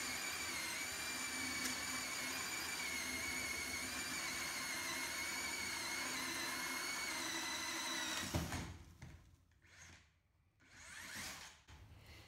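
DeWalt DCD130 60-volt FlexVolt drill/mixer running at its single 600 RPM speed, turning a 4-inch hole saw through a wooden board with a steady motor whine. About eight seconds in it stops with a sharp thump, followed by a few quieter knocks as the drill is handled.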